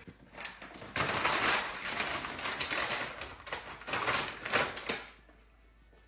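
Thin plastic bag crackling and rustling as a puppy carries and drags it across the floor. The crackling starts about a second in and dies away about a second before the end.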